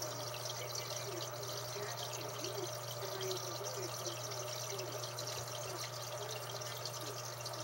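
Aquarium air pump and filter running: a steady low hum under continuous trickling and bubbling water.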